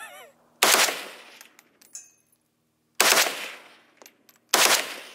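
AK-47 rifle firing on fully automatic in three short bursts, each a rapid string of shots lasting about half a second, with the shots echoing off the range afterwards.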